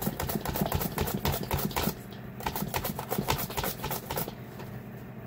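Cucumber being pushed back and forth across a V-blade mandoline slicer with a hand guard, set for thick slices. Each stroke makes a quick slicing click, several strokes a second, easing off about four seconds in.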